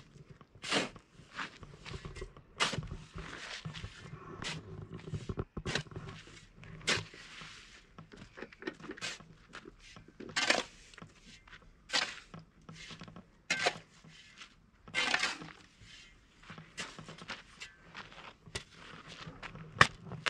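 Irregular knocks and short scrapes of hard objects being handled, about one every second or two, the sharpest near the end.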